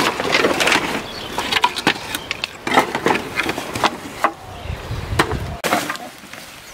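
Loose wooden planks knocking and clattering as they are pulled off a scrap-wood pile and tossed aside, a quick irregular string of sharp wooden knocks.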